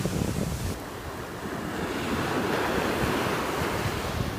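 Small surf breaking and washing up over a sandy beach, the wash easing about a second in and building again with the next wave, with wind rumbling on the microphone.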